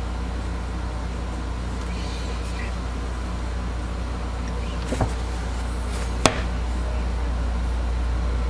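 A steady low hum with a light knock about five seconds in and a single sharp click just past six seconds, as the soap is handled on the wooden soap cutter.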